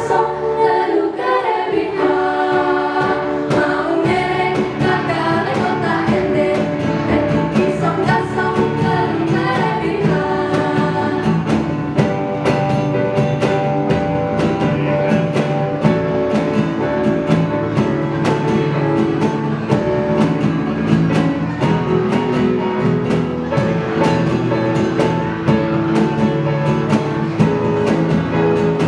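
A group of voices singing a song together over instrumental accompaniment with a steady beat.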